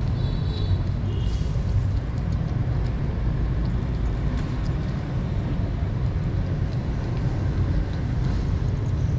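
Kittens eating wet food from a plastic tub close to the microphone, with faint chewing and licking clicks. A loud, steady low rumble runs underneath.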